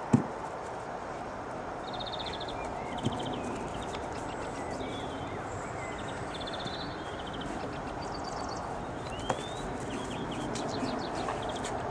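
Small birds chirping and trilling on and off over a steady background hiss, with a few sharp knocks, the loudest just at the start.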